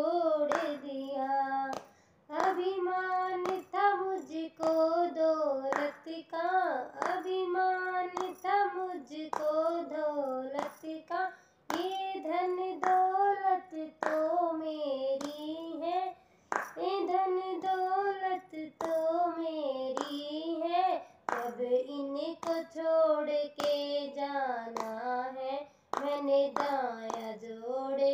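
A high voice singing a Hindi devotional bhajan in phrases with short breaks, while hands clap a steady beat about every three-quarters of a second.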